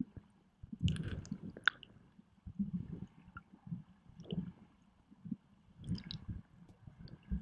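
River water sloshing and gurgling around a submerged camera, heard underwater: muffled, irregular surges about once a second, with a few crackling bubble clicks.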